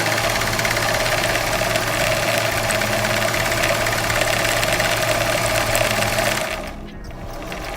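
Electric sewing machine running fast under the foot pedal, its motor driving the bobbin winder to wind thread onto the bobbin; it winds down and stops about six and a half seconds in as the bobbin fills.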